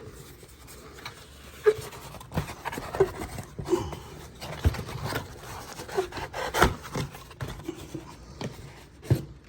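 Handling noise from a First Alert SA76RC smoke alarm being turned over in the hands: irregular rubbing with scattered light knocks and clicks, one sharper knock about two-thirds of the way through.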